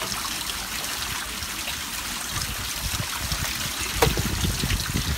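Water sloshing and trickling as a black plastic gold pan is pushed under and swirled in a trough of water. It gets choppier after a couple of seconds, with a sharp knock about four seconds in.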